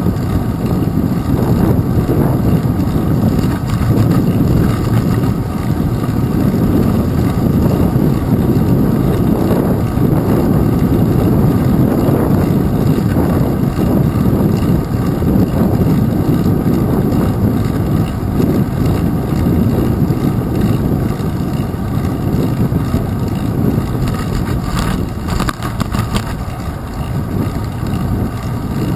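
Steady rumbling wind noise on a handlebar-mounted GoPro camera's microphone from a moving bicycle, mixed with the tyres rolling on the path. A few light rattles come near the end.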